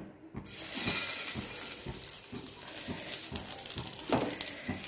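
Bread-and-potato cutlets placed in hot oil in a frying pan, sizzling and crackling. The sizzle starts about half a second in.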